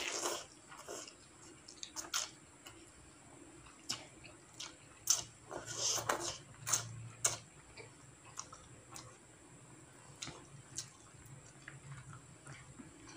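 Close-up eating sounds of instant noodles in soup: slurping noodles off a plastic spoon and wet chewing, in irregular bursts with small mouth clicks. The bursts come thickest in the first seven seconds or so, then thin out to scattered clicks.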